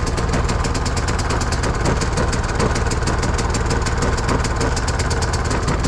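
WEN 56477i 4800-watt inverter generator's engine running steadily just after starting on the second pull of the recoil starter, still on choke, with an even, rapid firing beat.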